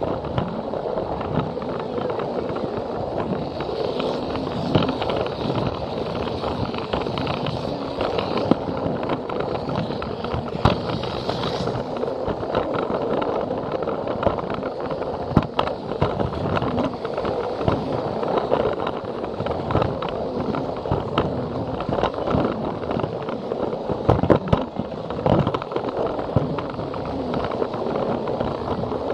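Battery-powered Plarail toy train running along plastic track: a steady rolling rattle with frequent sharp clicks.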